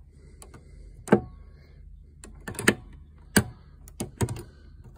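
Steel wrenches in a tool box drawer clinking against each other as they are handled: several sharp, irregular metal clinks.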